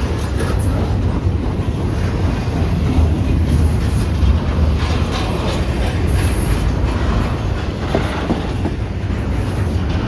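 Freight cars of a Kansas City Southern mixed manifest and intermodal train rolling past: a steady low rumble with wheels clicking over the rail joints.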